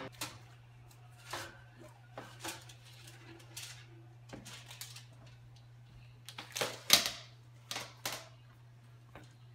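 Scattered knocks and clatter of a baking sheet being slid onto an oven rack and the oven door shutting, the loudest knock about seven seconds in, over a steady low hum.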